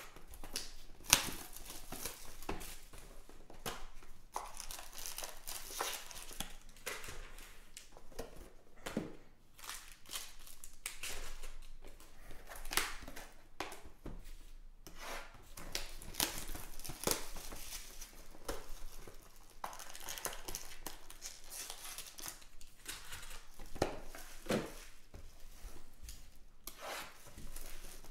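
Plastic shrink wrap being slit and torn off a trading-card hobby box, with crinkling and rubbing of the plastic and the foil packs as they are handled. There is a sharp click about a second in.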